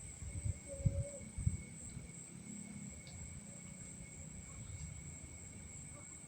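Steady night-time insect chorus with a constant high-pitched drone, with a few low thumps and rustles in the first second and a half.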